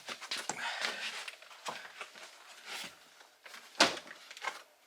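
Plastic interior trim panel of a 2017 Kia Sorento rear door being pried off with trim tools: a string of small clicks, creaks and rustles as the retaining clips work loose, with one sharp snap about four seconds in.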